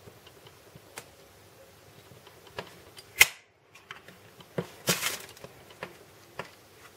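Zippo-style petrol lighter being worked: scattered small metal clicks, a sharp clack about three seconds in, and a short rasping burst near five seconds, like the flint wheel being struck to light it.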